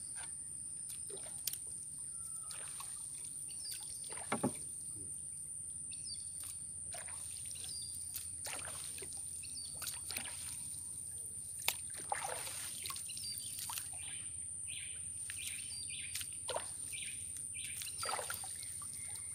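A wooden canoe being paddled: the paddle splashes and drips in the water, with a few sharp knocks. Under it runs a steady high insect drone, and short bird chirps come now and then.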